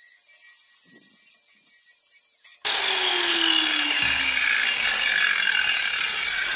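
Angle grinder grinding the dross off the plasma-cut edge of quarter-inch steel plate. It starts suddenly about two and a half seconds in and grinds on loudly, with one tone that falls slowly in pitch over the next few seconds.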